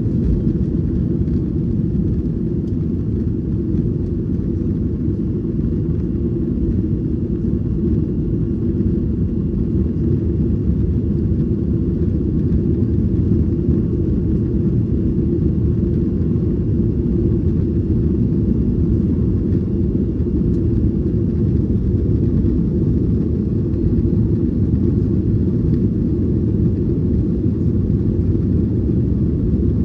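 Steady, loud low rumble of a Boeing 737-900ER's CFM56 engines and airflow, heard from inside the passenger cabin.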